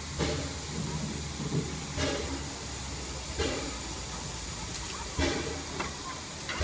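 Climax geared steam locomotive No. 1694 hissing steadily, with steam leaking from around its cylinders. A dull low thud comes about every second and a half.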